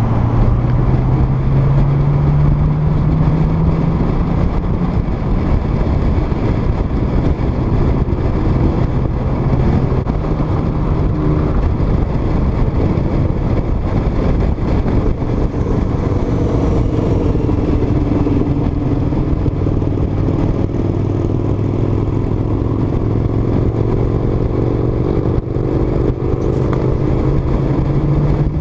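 Nissan Skyline R32 GT-R's twin-turbo straight-six running on the move, with heavy wind and road noise on a camera mounted outside the car. The engine note climbs in pitch through the second half as the car speeds up.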